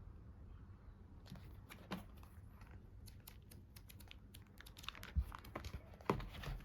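Faint, scattered light clicks and rustling of hands handling small objects, with a couple of louder taps about five and six seconds in.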